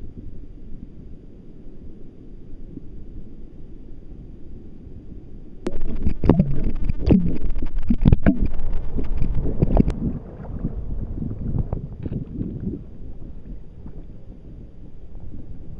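Water lapping against a kayak hull, with wind on the microphone. From about six to ten seconds in, the camera dips under the surface: the sound turns suddenly louder and muffled, with knocks and sloshing, then cuts back to the surface noise.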